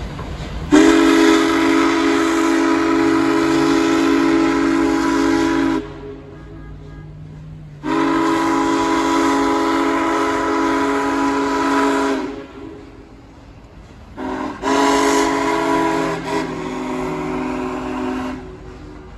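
Union Pacific Big Boy 4014's steam whistle sounding a chord of several notes in two long blasts, a short one and a final long blast, the grade-crossing signal pattern.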